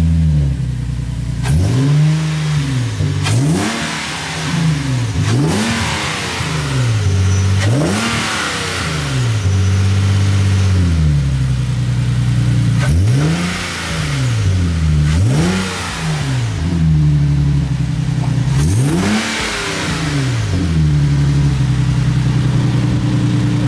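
Nissan 370Z's 3.7-litre V6, breathing through freshly installed Z1 cold air intakes with open cone filters, revved again and again in short blips that rise and fall back, about a dozen times, then settling to a steady idle near the end.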